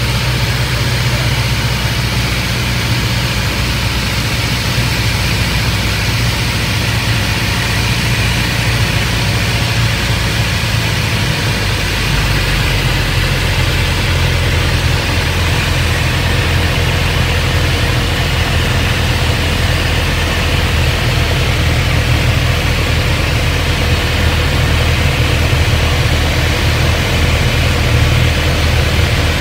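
Cabin sound of a Piper Cherokee 180's four-cylinder Lycoming engine and propeller throttled back to idle, with steady airflow hiss, during a power-off glide. The engine's low drone settles lower about twelve seconds in.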